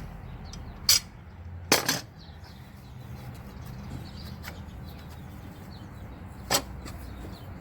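Sharp metallic clinks of hand tools against engine parts: one about a second in, a double clank just before two seconds, and another near the end, over a low steady hum.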